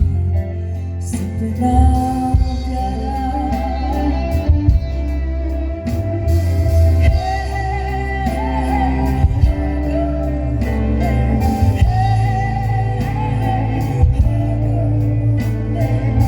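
Live rock band playing with a singer: a sung melody over guitar, bass and drums.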